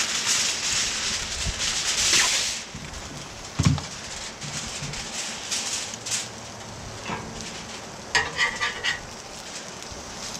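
Aluminium tin foil pulled off the roll and crinkled as it is spread out, loudest in the first couple of seconds, with a sharp knock a few seconds in and more crinkling near the end. Under it, salmon fillets sizzle on a hot flattop griddle.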